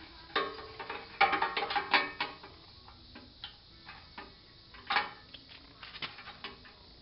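Steel roller fairlead's rollers and pins clinking and rattling as it is handled and fitted onto a winch mount: a quick cluster of metal clicks and clanks about a second in, a sharp single clank about five seconds in, and a few lighter taps after it.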